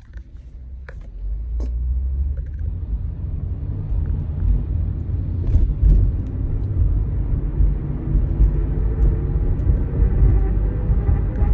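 Low rumble and drone from a 2008 Hyundai Santa Fe AWD under acceleration, growing louder about a second in, with a faint whine rising in pitch as speed builds. This is the unexplained noise the owner hears whenever the vehicle accelerates.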